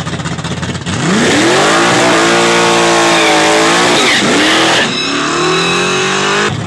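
Car doing a burnout: about a second in the engine revs up hard and holds at high revs while the tyres spin and squeal. The engine dips briefly once and picks back up. Near the end the squeal dies away while the engine keeps running.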